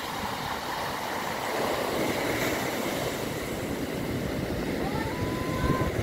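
Sea surf: small waves breaking and washing up the sandy shore in a steady rushing noise that swells about a second and a half in. Wind gusts rumble on the microphone.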